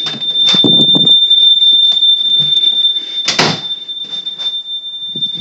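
Smoke alarm sounding one steady, loud, high-pitched tone, with two bursts of noise about half a second in and about three seconds in.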